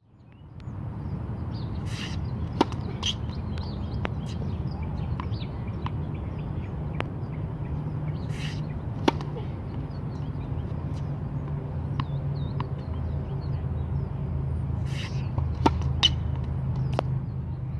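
Tennis serves: three sharp pops of the racket hitting the ball, about six and a half seconds apart, over a steady low rumble, with birds chirping.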